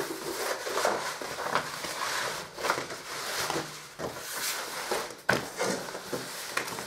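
Lining paper rustling as it is unrolled across a wooden pasting table, smoothed flat and lifted by hand, with a sharp tap about five seconds in.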